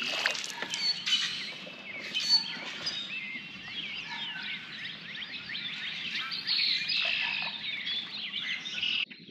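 Many songbirds chirping and singing, a dense chorus of short overlapping calls that rise and fall in pitch.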